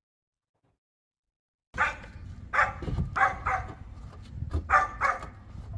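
A dog barking in short, sharp barks, about six of them, starting a couple of seconds in after dead silence, over a low steady rumble.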